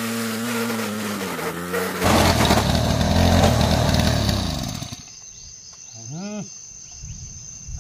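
Backpack brush cutter engine running, then revving louder about two seconds in as it cuts grass. It winds down and stops about five seconds in. Crickets then chirp steadily, and a person's voice is heard briefly near the end.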